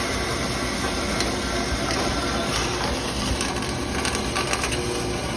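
Metal-cutting bandsaw running, its blade partway through a cut as it feeds down into the stock: a steady cutting noise with faint scattered ticks.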